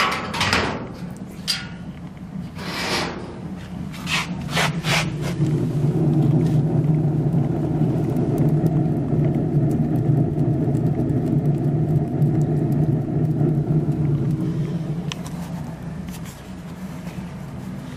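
A few metal clanks as a cover is set back on a homemade sawdust furnace. Then the furnace fire and its draft build to a steady deep rush as the sawdust fire takes hold, easing off somewhat near the end.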